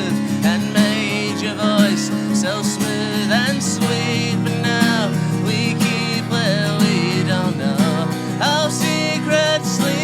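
Acoustic guitar strummed steadily in the instrumental stretch of the song, with a wavering lead melody over it.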